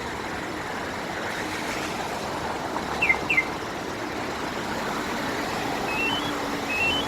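Isuzu 3.5-ton truck's diesel engine idling after a remote start. About three seconds in come two short falling chirps, and near the end a rising three-note electronic beep repeats about once a second.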